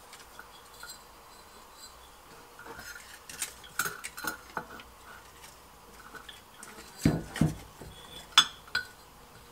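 Handling noise of a cut glass bottle and a textile cable on a silicone work mat: scattered light clinks and knocks, with a dull thump about seven seconds in and a sharp click just after eight seconds.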